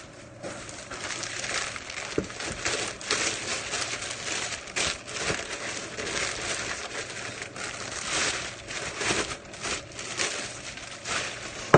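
Clear plastic wrapping crinkling and rustling as a cookware pot is pulled out of its packaging, in an uneven run of crackles.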